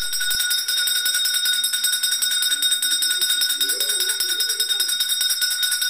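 Brass puja hand bell rung rapidly and continuously during the lamp offering of a Hindu worship, a bright, high ring of many quick, even strokes.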